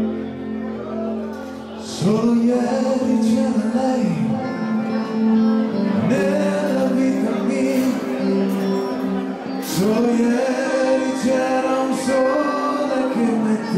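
Live band playing: a male vocalist singing over electric guitars, bass and drums. The singing comes in about two seconds in, after a held chord.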